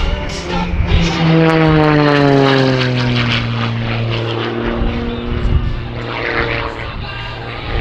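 Edge 540 aerobatic plane's six-cylinder piston engine and propeller at high power. Its pitch falls steadily over a couple of seconds as the plane passes and climbs away, then settles into a steady drone.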